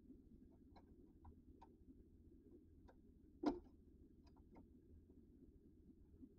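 Faint, irregular clicks and taps of small hand tools being handled, with one sharper knock about three and a half seconds in.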